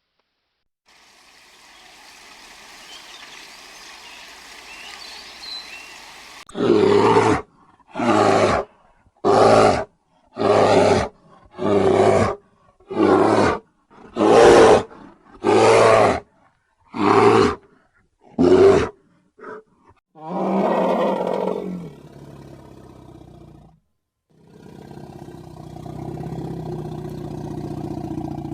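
A large animal calling loudly: a series of about nine short, evenly spaced calls, then two longer, lower calls, after a few seconds of faint background hiss.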